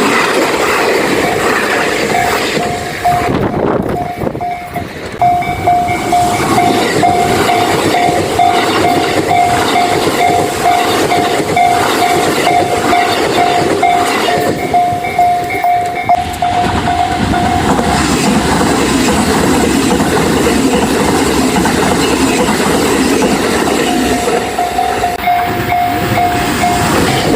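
A train running past with its wheels clattering, loud throughout, while a Japanese level-crossing warning bell rings in a fast, even repeated ding over it. The bell stops about two-thirds of the way through and starts again a few seconds before the end.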